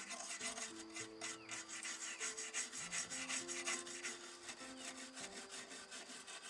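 Quick, repeated rasping strokes of hand abrasive work on a model car, over background music with a slow melody.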